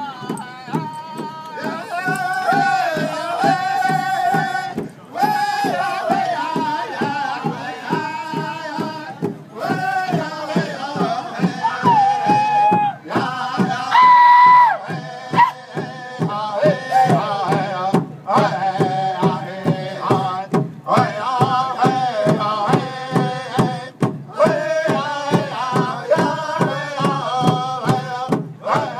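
Native American men's drum group singing in chorus, high-pitched vocal lines over a steady beat struck together on a shared drum. The singing breaks off briefly between phrases several times, with one high held note about halfway through.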